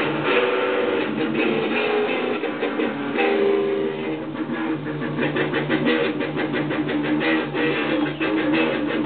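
Electric guitars played through small amps, rhythmic chord strumming with steady low notes underneath, the strokes coming faster and more evenly in the second half.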